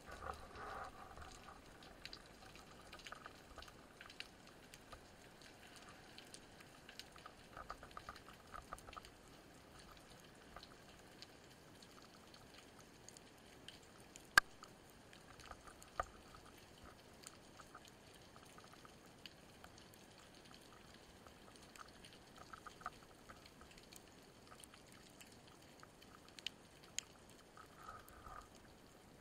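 Faint underwater ambience picked up by a camera in its housing: a low hiss with scattered small clicks and crackles, and one sharper click about fourteen seconds in.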